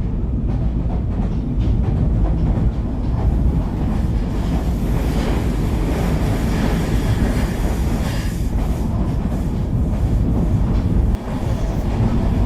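Moving Indian Railways passenger train: a steady, loud low rumble of the coaches and wheels running on the rails, with a hiss that swells in the middle.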